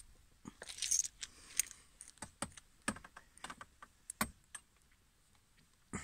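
Irregular clicks and light knocks with a brief jingle about a second in, like small objects being handled and set down.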